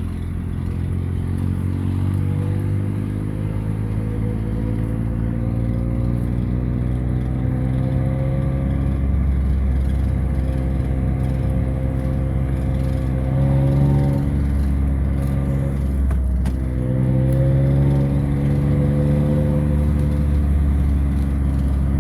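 Vehicle engine running under way, its pitch climbing slowly as it speeds up; about two-thirds of the way through the pitch drops, then climbs again.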